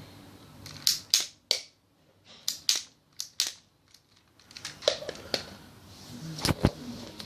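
Sharp plastic clicks and clacks from a Lego toy rifle's parts, about ten of them in irregular groups of two or three, with short pauses between.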